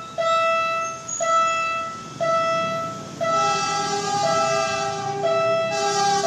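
Railroad crossing warning bell ringing about once a second, each ring a single note that fades away. From about three seconds in, the rumble and hiss of an approaching Kiha 52 diesel railcar set grows beneath it.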